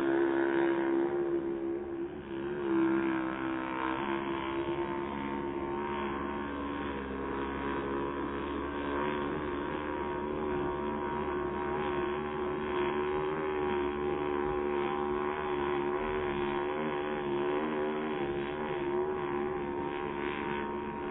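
Radio-controlled model hydroplane's engine running at speed: a steady drone of several pitched tones that waver gently up and down, with a brief dip in level about two seconds in.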